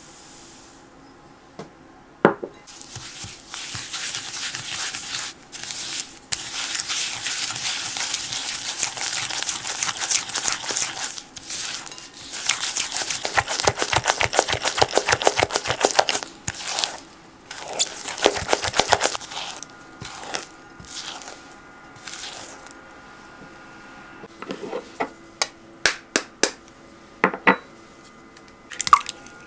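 Butter and sugar being creamed by hand in a glass bowl with a white spatula: gritty scraping in fast, rhythmic strokes as the sugar grains rub against the glass. The mixing stops about two-thirds of the way through, and a few sharp clicks and taps of glassware follow near the end.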